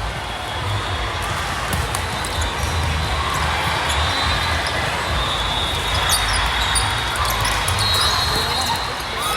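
Volleyball play echoing in a large gym: the ball being hit and bouncing, with short high shoe squeaks and a steady murmur of the crowd and other courts.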